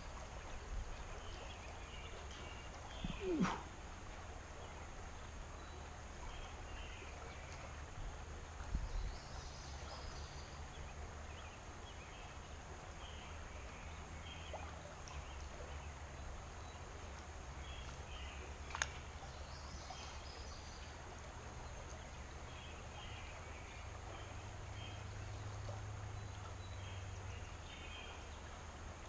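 Quiet riverside ambience: a steady low rumble of moving air and water with small birds chirping faintly now and then. A short falling call about three seconds in and a single sharp click a little past halfway stand out briefly.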